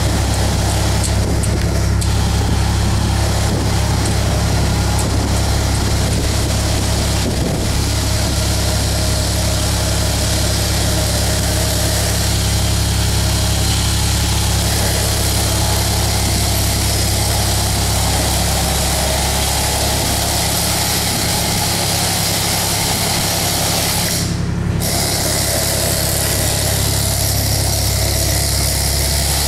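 Steady machinery noise with a strong low hum and no break.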